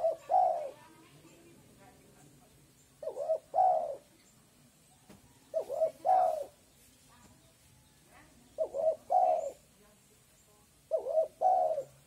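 Spotted dove cooing its repeated three-note phrase, five times, about every two and a half to three seconds: two short quick notes followed by a longer one.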